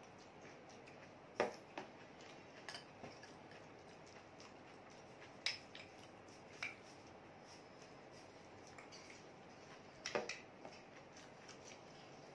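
A metal spoon clinking and scraping against a glass bowl while eating. It gives a scattering of short, sharp clinks, the loudest about a second and a half in and again about ten seconds in, over a quiet, steady room background.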